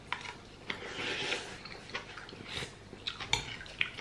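Soft eating sounds: chewing, with a few light clicks of a metal spoon and fork against a soup bowl.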